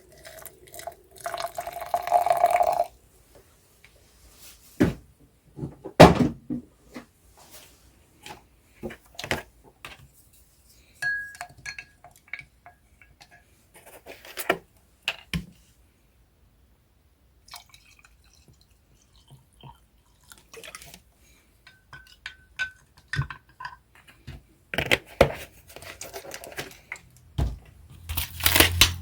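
Coffee being made by hand: cups and utensils knocking and clinking as they are set down, a short stretch of liquid pouring about a second in, and a couple of brief ringing clinks. There is a short gap of dead silence near the middle.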